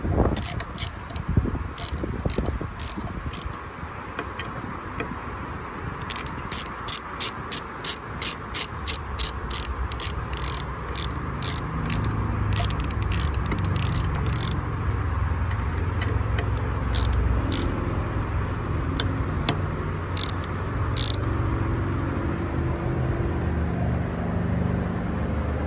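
Hand ratchet clicking in runs of sharp, even clicks as a socket tightens the thermostat housing bolts onto a new water pump, the clicks thinning out over the last part. A low steady hum sets in underneath about nine seconds in.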